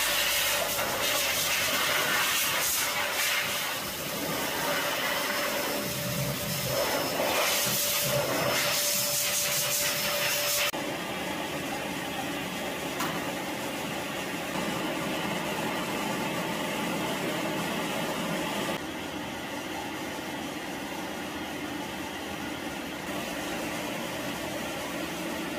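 Dog grooming blow dryer running, a steady rush of air with a faint motor whine. The noise drops abruptly in level about eleven seconds in and again near nineteen.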